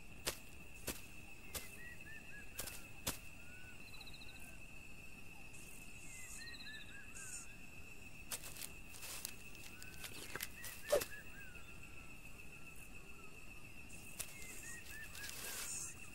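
Faint wild-country ambience: clusters of short bird chirps and a couple of brief buzzy trills over a steady high tone, with scattered light clicks, the loudest about eleven seconds in.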